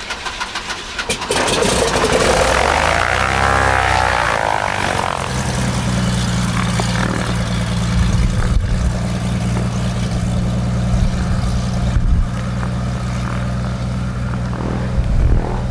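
Cessna 185 Skywagon floatplane's six-cylinder piston engine and propeller coming up to power loudly about a second in, then running with a steady drone as the plane taxis away across the water on its floats.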